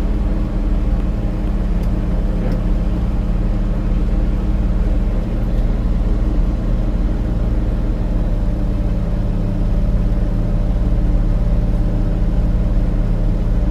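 An engine running steadily, a low, even drone that holds its pitch throughout.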